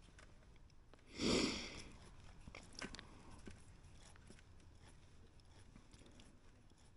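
Quiet background with one short rushing noise about a second in, under a second long, followed by a few faint clicks.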